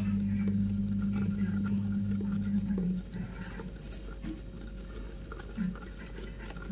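Thin metal stirrer scraping and tapping inside a small plastic jar of liquid, heard as faint, scattered light clicks. A low steady hum cuts off about three seconds in.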